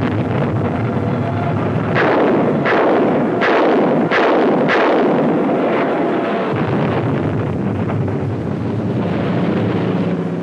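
T-28 fighter-bomber in a diving attack, heard from the cockpit: a loud, steady rush of engine and wind noise. Starting about two seconds in come five sharp firing reports, evenly spaced, as the plane's weapons are fired.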